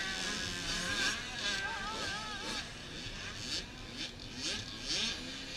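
Several dirt bike engines revving up and down as they ride around a motocross track, their pitch repeatedly rising and falling.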